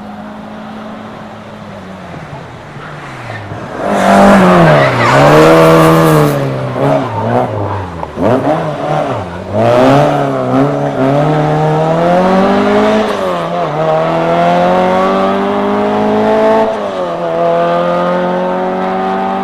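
Rally car engine revving hard in a race, suddenly much louder about four seconds in. Its pitch rises and falls with the throttle, then climbs steadily through the gears, dropping back at each upshift, twice near the end.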